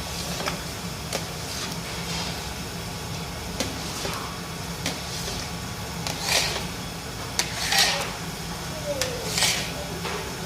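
Spoon stirring and scraping ash gourd halwa in a cooking pan, with a swish about every second and a half from the middle on, over a steady low hum.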